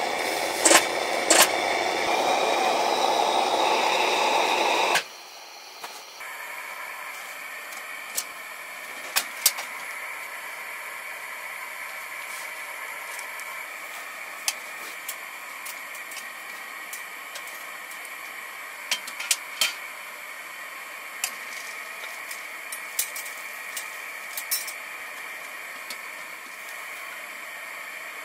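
Petromax HK500 kerosene pressure lantern's flame hissing loudly, with two sharp clicks; it cuts off about five seconds in. Then comes a quieter steady hiss with scattered sharp crackles from a Tent-Mark wood stove burning down to glowing embers.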